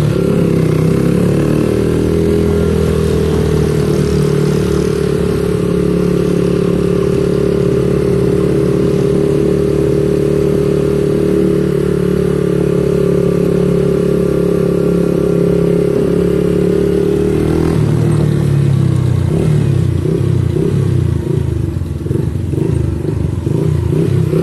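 Small motorcycle's engine running steadily at cruising speed while riding. Just over two-thirds of the way through, the engine note drops and turns uneven and pulsing as the bike slows.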